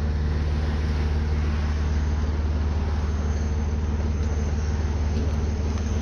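An engine idling steadily, a low even hum that does not change.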